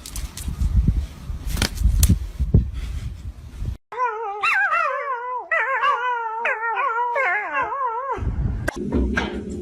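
A pet's long howl in several drawn-out, wavering phrases, after a few seconds of rumbling and sharp knocks. A steady low hum comes in near the end.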